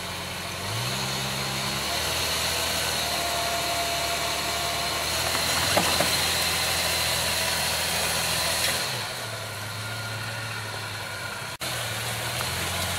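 Jeep engines running under load while a stuck Jeep Cherokee XJ is pulled from the front on a tow strap. The revs rise about a second in and fall back near nine seconds in, followed by a brief dropout and another engine running at a lower pitch.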